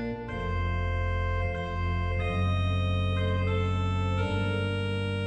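Background music of sustained organ-like keyboard chords that change every second or so over a steady bass.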